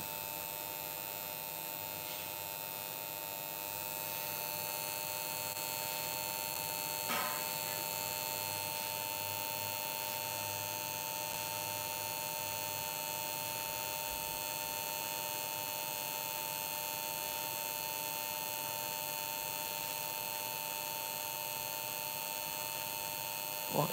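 Steady electrical hum made of several constant tones, with one brief faint sound about seven seconds in.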